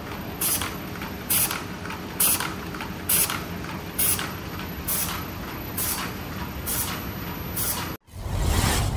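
Automatic box chain making machine with a laser welder running, a steady mechanical clatter broken by a short hiss-like burst a little faster than once a second. About a second before the end it cuts off and a whoosh sound effect swells up.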